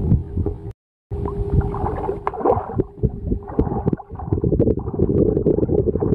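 A large rohu thrashing and splashing in shallow water as it is hauled in on a hand line and dragged onto the bank, under rough rumbling noise. The sound cuts out for a moment about a second in.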